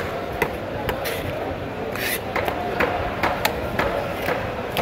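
Large knife chopping through raw tuna steak and striking a wooden chopping block: sharp, irregular knocks, about two or three a second.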